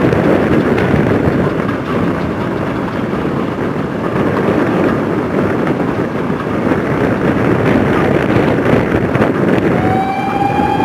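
Steam locomotive working a passenger train past at speed: a continuous rough exhaust chuff and the rumble of coaches on the rails, with wind on the microphone. A steady whistle note sounds near the end.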